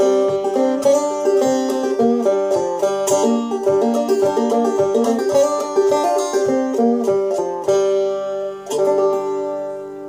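Homemade banjo with a frying-pan body and groundhog-hide head, picked in a quick, even run of notes. About eight seconds in the picking stops, and two last strums ring out and fade.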